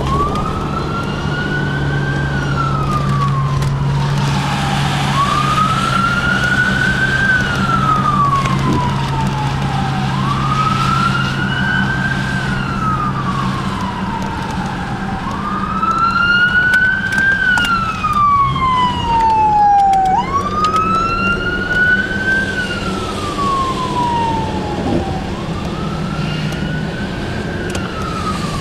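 Police car siren on a slow wail, rising quickly and falling slowly, each cycle about five seconds long, heard from inside a car. A low steady hum underneath stops about halfway through.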